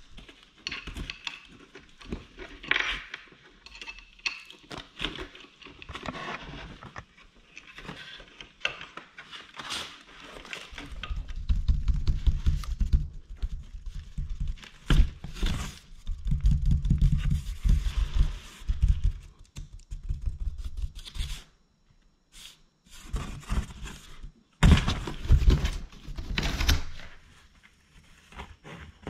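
Cardboard and paper rustling, crinkling and knocking as a cat plays in boxes and packing paper, with bouts of heavy low thudding from the cardboard in the middle and again near the end.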